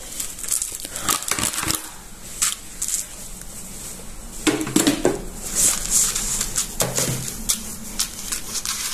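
Steamed fine vermicelli being scraped off a plastic Thermomix steaming tray with a spatula and worked by hand in a plastic bowl: rustling, crackling strands with scattered light clicks and knocks of plastic against plastic.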